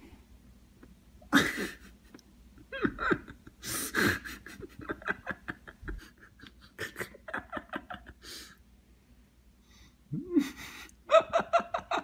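A man laughing in breathy outbursts of rapid, staccato pulses, a laugh he likens to a machine gun.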